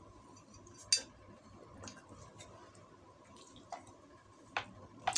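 Drinking from a glass: a handful of short, sharp clicks about a second apart, from swallowing gulps and the glass being handled, over a quiet room.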